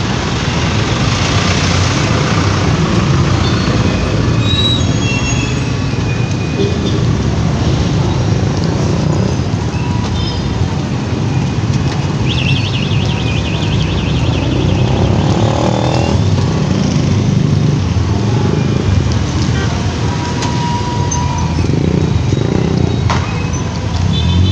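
Busy road traffic at close range: the engines of cars, vans, trucks and motorcycles running and passing in a steady, dense rumble.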